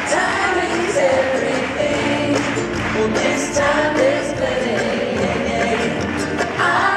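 Live acoustic band playing, with acoustic guitar, ukulele, cello and upright bass, and voices singing together.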